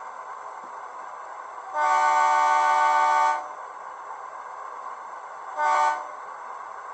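HO scale SAR 900 class diesel locomotive model's DCC sound decoder sounding its multi-tone horn through the model's small speaker: one blast of about a second and a half, then a short toot about two seconds later. A steady engine-idle sound from the decoder runs underneath.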